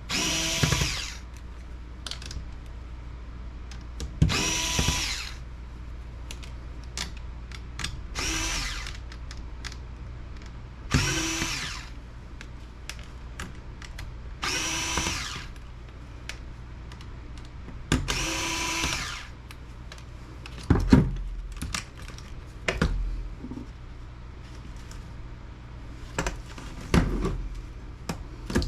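Electric screwdriver whirring in six short bursts of about a second each, a few seconds apart, as screws are backed out of a laptop being taken apart. Sharper knocks and clicks follow in the last third.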